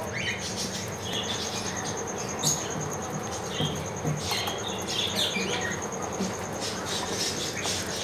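Caged small birds chirping in many short, scattered high calls, over a steady high-pitched tone and a faint low hum.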